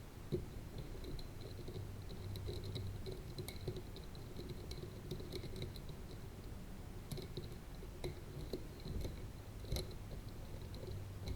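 Small irregular clicks and ticks of a screwdriver and tiny screws being fitted to fix a solar panel onto a CubeSat frame, over a low steady hum.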